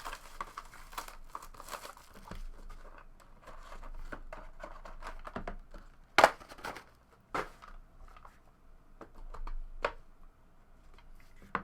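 Trading card pack wrapper being torn open and crinkled, with several sharp snaps about six, seven and ten seconds in.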